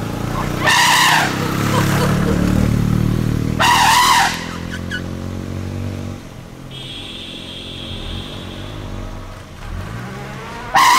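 Motorcycle engine running as it rides past close by, its note dropping and fading after about four seconds. Two loud, shrill blasts cut in about one and four seconds in, and another comes at the very end.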